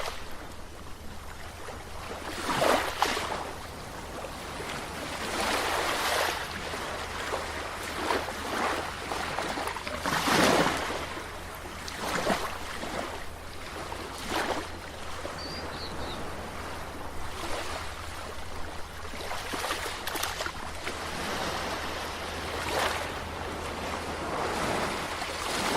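Sea waves washing in and breaking, a surge of surf every few seconds, the biggest about ten seconds in, over a steady low hum.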